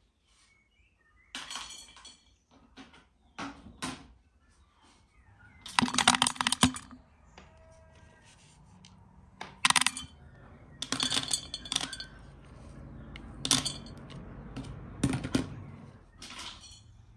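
Handfuls of dried fruit and nuts (raisins among them) tipped from small wooden bowls into a bowl, each pour a short rattling clatter. There are about eight pours, with the loudest about six seconds in.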